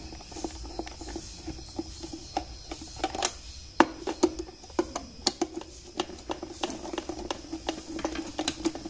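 Irregular small clicks and taps of fingers and parts against the opened plastic housing of a blender's motor base, over a faint steady hum; the sharpest click comes about four seconds in.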